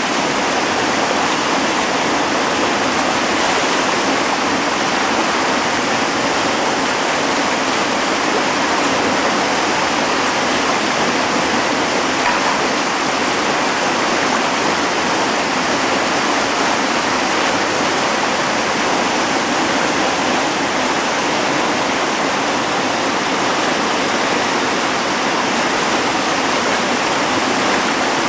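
Whitewater rapids pouring over rock ledges: a loud, steady, unbroken rush of water.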